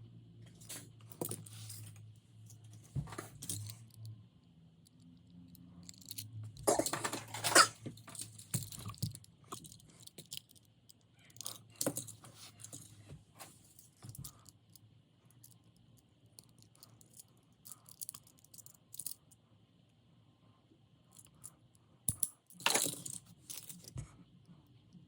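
Small die-cast toy cars being handled, clicking and clinking in short scattered bursts, with louder clatters about seven seconds in and near the end.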